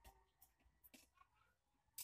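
Near silence with a few faint clicks and taps of metal tongs against a metal pan as roasting eggplants are turned, and a sharper click at the end.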